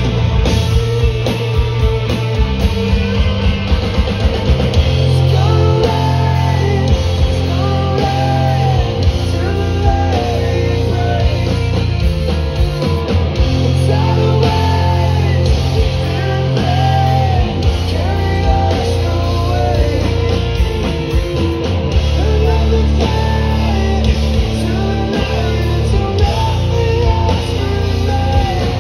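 Live rock band at full volume: distorted electric guitars, bass and drums, with a vocal melody sung over them.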